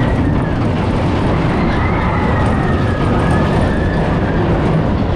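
Big Thunder Mountain Railroad mine-train roller coaster running along its track: a loud, steady rumble with faint high tones sliding up and down above it.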